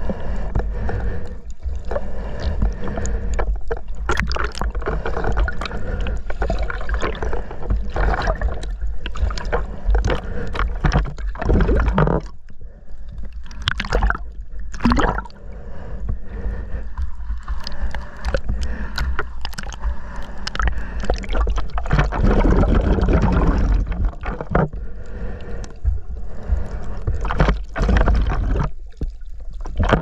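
Muffled water sound from a camera held underwater while snorkeling: water sloshing and gurgling against the camera, with a constant low rumble and many scattered clicks and splashes.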